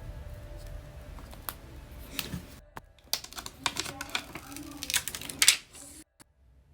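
A quick run of light clicks and taps from small hard objects, loudest about five and a half seconds in.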